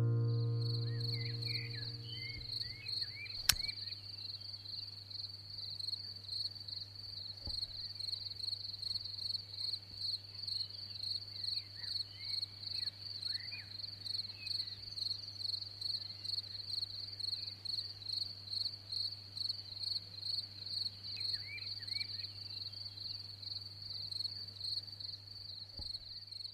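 The last banjo and guitar chord fades away over the first two seconds, leaving insects chirping in a steady, high-pitched run of quick regular pulses, with a few faint bird chirps now and then. A single sharp click sounds about three and a half seconds in.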